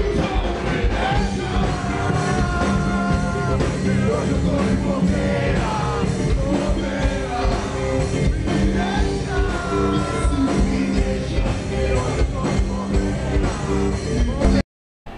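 A live rock band playing electric guitars and drums, with a male singer singing into a microphone over them. The music cuts off suddenly shortly before the end.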